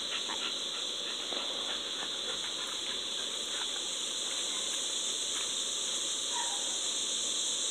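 Steady, high-pitched drone of an evening insect chorus, with a few faint short chirps over it.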